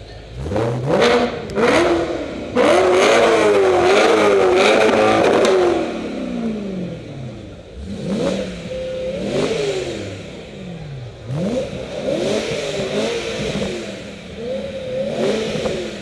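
BMW engine free-revving through a Remus exhaust with X-pipe, inside a concrete parking garage. It gives a series of throttle blips, each rising and falling in pitch, with the loudest, longest rev held from about three to six seconds in and shorter blips after.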